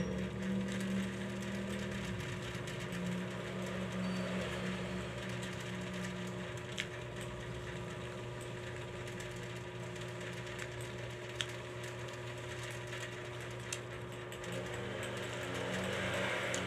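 Steady hum of a small electric motor, with a few soft sharp clicks.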